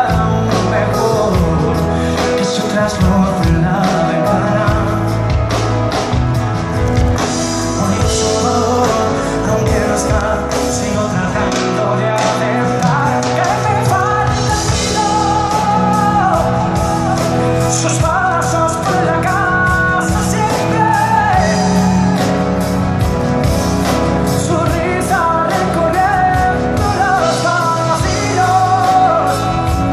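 Live Latin pop band music played loud in a large concert hall, a melodic lead line over a steady band, with singing at times.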